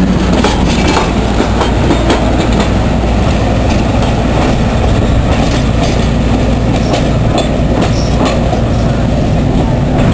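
Brill streetcar with its towed generator trailer pulling away along the track. There is a steady low rumble and hum, with clicks of the wheels over the rail joints.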